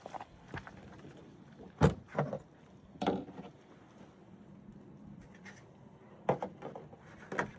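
A handful of short, sharp knocks and clunks of objects being handled and set down, about five in all, the loudest about two seconds in.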